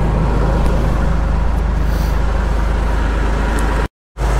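Tractor's diesel engine running steadily while towing a loaded log trailer, heard close up from the trailer's drawbar platform. The sound cuts out abruptly for a moment near the end, then the engine is heard again.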